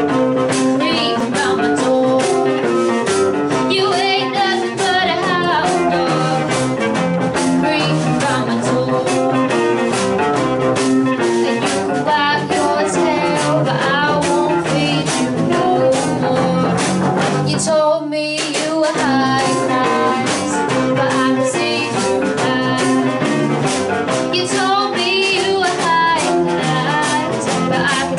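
Small live band playing a blues-style rock-and-roll song: a female voice singing over electric guitar, bass guitar and drums, with one brief stop about two-thirds of the way through.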